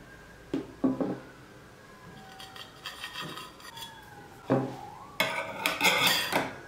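Metal cake server clinking and scraping against the tart pan and a ceramic plate as tart slices are cut free and lifted out. There are a few light clinks in the first second, then scraping, a knock about four and a half seconds in, and louder scraping near the end.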